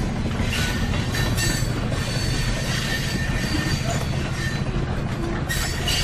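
Train rolling on rails: a steady low rumble with thin, steady high tones above it and a few louder rattling passages, the strongest near the end.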